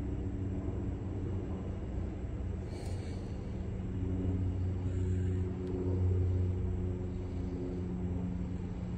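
An engine running steadily with a low hum, its pitch pattern shifting slightly about four seconds in, with a brief hiss near three seconds in.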